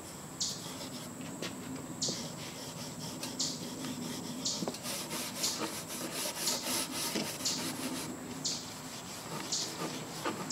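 Steel wool pad rubbing over the lacquered wood of a drawer in short scouring strokes, uneven in rhythm and quicker and denser through the middle. This is the light rub-down between coats of lacquer, smoothing the finish before the next coat.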